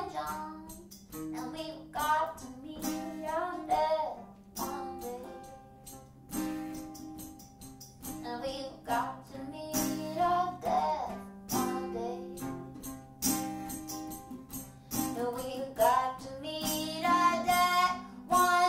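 A female voice singing a song to guitar accompaniment, the guitar strummed in a steady rhythm under the melody.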